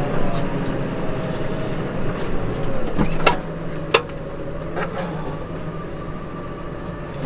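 Case Maxxum 150 tractor engine running steadily under ploughing load. Its note dips and settles slightly lower about three seconds in, with a few sharp knocks around then.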